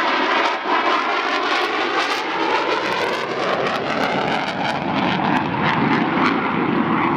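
F-14 Tomcat's twin jet engines, loud and steady as the fighter flies its air show display, with a whining tone that drifts slowly in pitch and a crackle through the jet noise.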